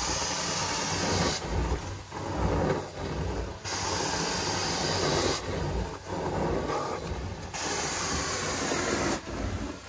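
Hot water extraction carpet-cleaning wand working the carpet: a steady vacuum rush with hiss, its tone changing back and forth about every two seconds, stroke by stroke.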